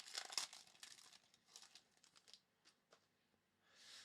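Trading cards and packaging being handled, a quick papery crinkling and rustling that thins out after about a second into a few light clicks.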